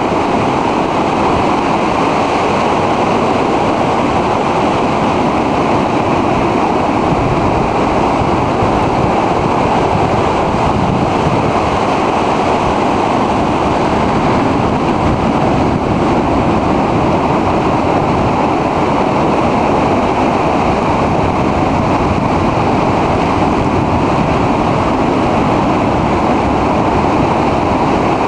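Heavy storm surf breaking over rocks and a concrete pier, a loud steady rush of water with no single crash standing out, and wind buffeting the microphone.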